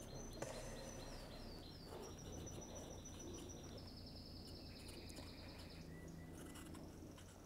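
Faint songbird singing: trills of rapid repeated high notes, each phrase pitched differently, over a faint low steady hum.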